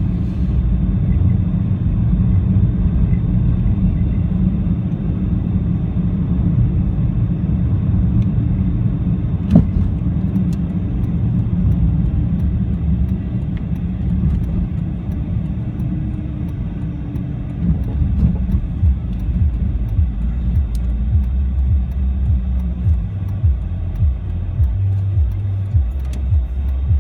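Car driving on a snow- and ice-covered road, heard from inside: a steady low rumble of tyres and engine, with a single sharp knock about nine and a half seconds in. In the last third the rumble turns uneven and pulsing.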